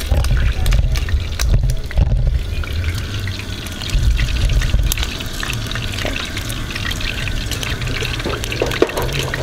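Bacon sizzling and crackling in hot oil in a frying pan: a dense, steady spatter of small pops. A heavy low rumble lies under it.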